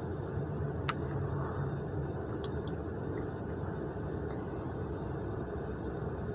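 Steady low hum and hiss of a car interior while parked, with a faint tick about a second in and a couple of small clicks a little later.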